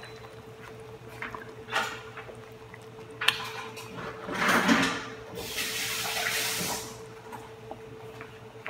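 Kitchen tap turned on briefly: a short splash, then water running for about a second and a half before it shuts off, with a few light knocks before it. A steady low hum sits underneath.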